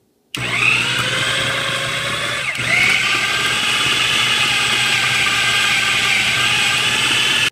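Black+Decker food processor running, its blade chopping sticky Medjool dates and dried shredded coconut into a paste. The motor whine starts abruptly, dips briefly and spins back up about two and a half seconds in, then cuts off sharply at the end.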